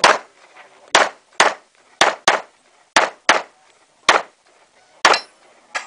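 Semi-automatic pistol firing during a practical shooting course of fire: about ten sharp shots, spaced irregularly, some in quick pairs.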